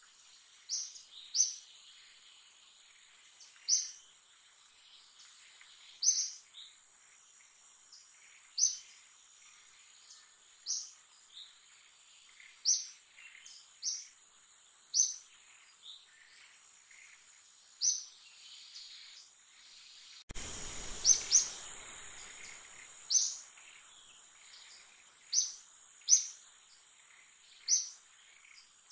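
A bird repeating a short, sharp high chirp every second or two over a steady high-pitched insect drone. A brief rush of noise cuts in about two-thirds of the way through.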